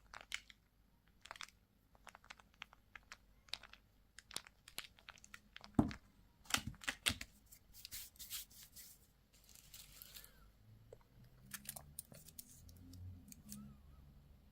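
Candy wrappers being handled, crinkled and torn open in irregular small clicks and rustles, with a sharp knock about six seconds in and a longer stretch of crinkling a little after.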